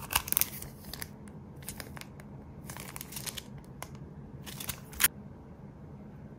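Clear plastic packaging crinkling as bagged chain packs on card backing are handled and turned over, in four short bursts with the last, near the five-second mark, the sharpest.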